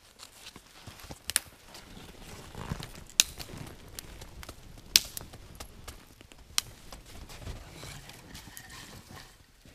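A foam sit pad waved to fan a smouldering ember and birch bark in a campfire pit, giving uneven gusts of air, with a few sharp snaps along the way.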